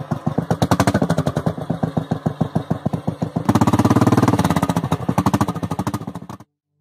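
Motorcycle engine running with a fast, even beat of exhaust pulses, growing louder about halfway through, then cutting off suddenly near the end.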